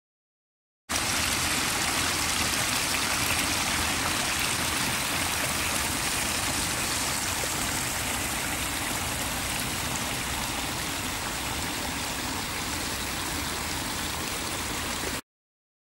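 Small woodland stream running over rocks and fallen leaves, a steady rush of water. It starts suddenly about a second in and cuts off abruptly near the end.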